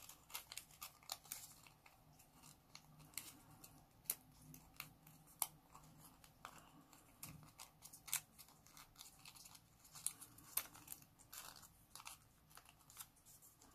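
Folded origami paper being handled and slotted together by hand: faint, irregular crinkles and small paper clicks.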